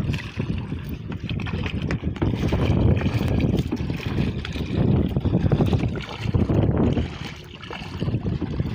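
Wind rumbling on the microphone, swelling and easing, over water splashing as a wooden paddle strokes alongside a small outrigger boat.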